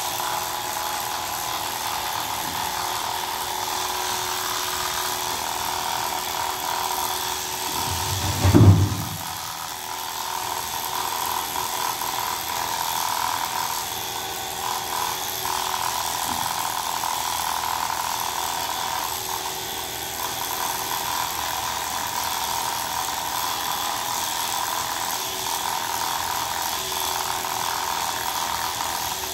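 Electric pet hair clippers buzzing steadily as they shave a cat's long coat, with one short, loud, low thump about nine seconds in.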